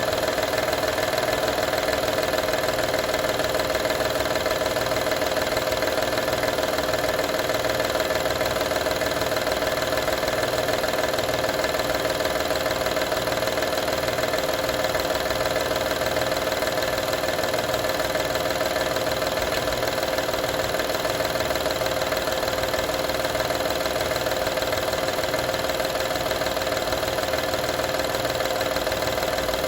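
2012 Honda Odyssey's 3.5-litre V6 running steadily at idle, with a knocking rattle whose cause the owner is asking about.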